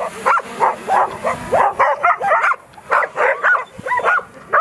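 A pack of street dogs barking and yelping at a drone flying low over them: rapid, overlapping barks from several dogs, about three a second.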